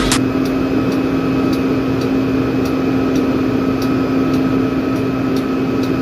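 Steady machinery hum on a drilling rig with a constant pitch, and a light tick about twice a second.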